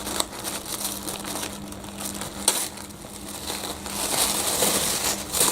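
Crinkly wrapping being handled and pulled open, crackling throughout with a sharp snap about two and a half seconds in and getting louder over the last second and a half.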